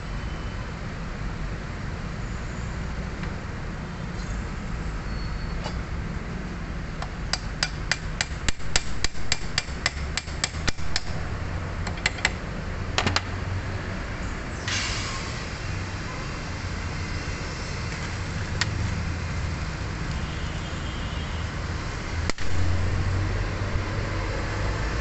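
A hammer tapping on metal: a quick, even run of about twenty light taps, roughly five a second, then a few single taps. A short hiss follows, all over a steady low rumble.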